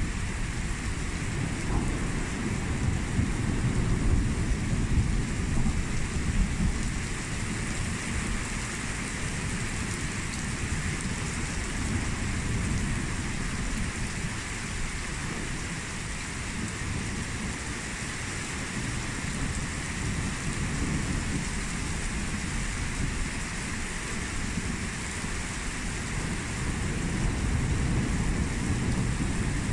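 Steady rain falling in a thunderstorm, with thunder rumbling low underneath. The rumble swells a few seconds in and again near the end.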